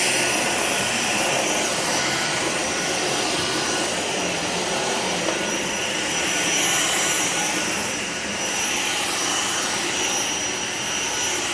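Dyson V6 Motorhead cordless stick vacuum running steadily over carpet with its motorised brush head, a high steady whine over the rush of air.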